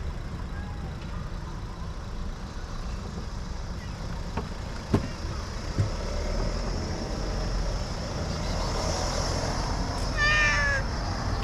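A street cat meows loudly once near the end, over a steady low rumble. There are two sharp clicks around the middle.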